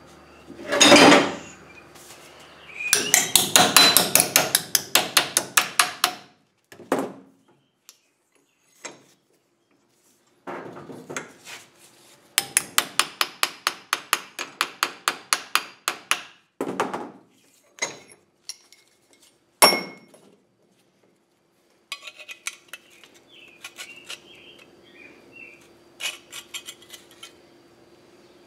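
Hammer striking a small metal patch plate against a steel grill burner tube held in a bench vise, shaping the patch around the tube to cover a rust hole. Two fast runs of ringing blows, about five a second, with single knocks between and one lone hard blow about two-thirds of the way in, then light metallic handling clatter.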